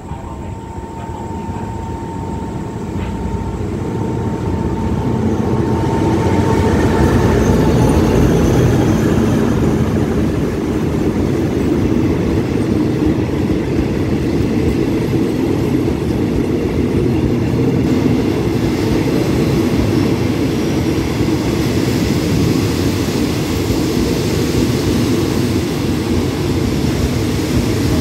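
A diesel-hauled passenger train pulling into the station, its locomotive and carriages running along the platform on steel rails; the sound of the wheels grows louder over the first several seconds, then holds steady as the carriages keep passing. A faint steady whine fades out after several seconds.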